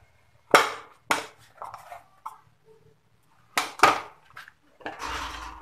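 Kitchen utensils knocked down on a marble countertop: two sharp knocks near the start and two more past the middle, then a short scraping rumble near the end.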